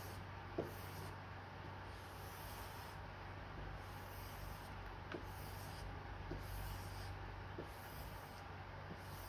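Keen #3 leather edge beveler being stropped on a green strop paddle: faint, soft rubbing strokes with a few light ticks, over a steady low hum.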